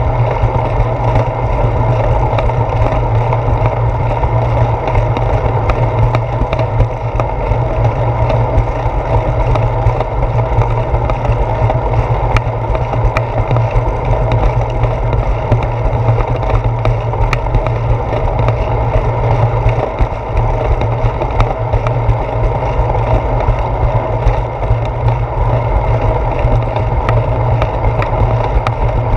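Steady wind and road noise picked up by a handlebar-mounted GoPro Hero 4 on a moving bicycle rolling along a concrete path, with a constant low rumble and many small ticks and knocks from the bike's vibration.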